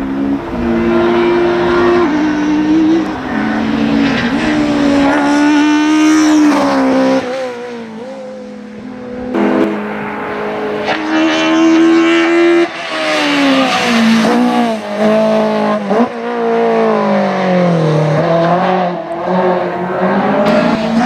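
Honda CRX race car's naturally aspirated S2000 F20 inline-four engine at high revs, the pitch climbing and then stepping down again and again as it works through quick gearshifts on its sequential gearbox. It gets louder and fainter as the car comes near and moves away, over several passes.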